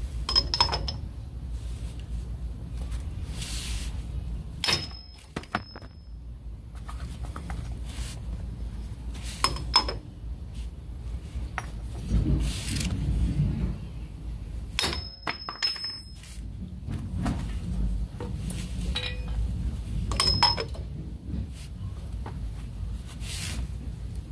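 Steel hand tools and a large socket clinking against a pinion flange and nut: a handful of sharp metallic clinks, roughly every five seconds, over a low steady rumble.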